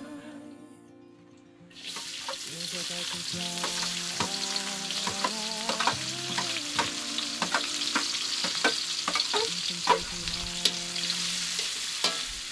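Food sizzling in a hot frying pan while it is stirred, with frequent sharp clicks of a utensil against the pan. The sizzle starts about two seconds in.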